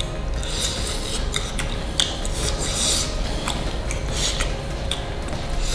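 Crunching chewing of crispy batter-fried shrimp, a dry rasping crunch about twice a second.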